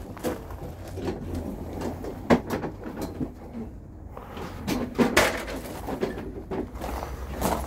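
A few scattered knocks and clunks of things being handled, the loudest about five seconds in, over a low steady hum.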